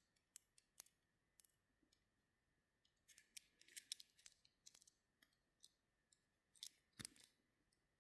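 Faint, irregular small clicks and scrapes from handling a Swiss Army knife, its ballpoint pen being slid out of and worked back into the scale. The clicks come in a busy run about three seconds in, with the sharpest click near seven seconds.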